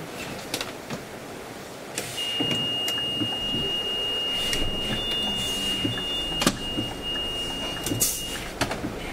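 Inside a Scania City Wide city bus at a stop: a steady high-pitched electronic warning beep sounds for about six seconds, with two brief higher beeps in the middle. Clicks and short hisses of air from the door mechanism come with it, as the doors are worked.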